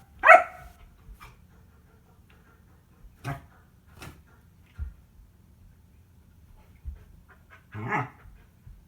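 German Shepherd puppy playing with a beach ball: a short, loud yelp or bark near the start, scattered knocks and low thumps through the middle, and a brief growling bark near the end.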